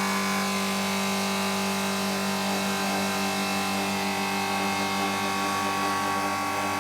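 Bristol refrigeration compressor running with a steady hum, its start relay chattering. The engineer takes the chattering for the sign that the Supco relay is faulty and dropping out.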